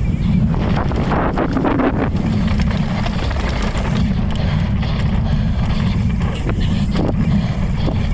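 Wind buffeting the microphone as a mountain bike rolls fast down a dirt track, a steady low rumble, with brief rattles of the tyres and bike over bumps about a second in and again near the end.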